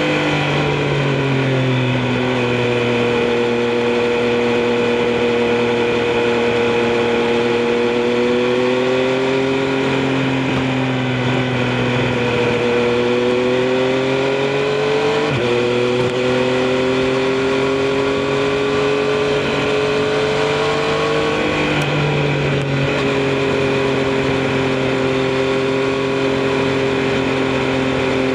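Triumph Street Triple RS's three-cylinder engine under way at road speed, its pitch rising and falling gently as the throttle changes. About halfway through the pitch jumps up suddenly, as at a gear change.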